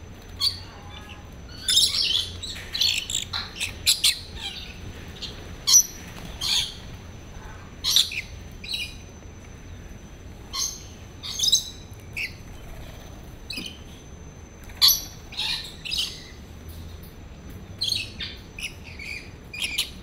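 Rainbow lorikeets calling: many short, high-pitched squawks and chirps in irregular bunches, some overlapping, over a faint steady high tone.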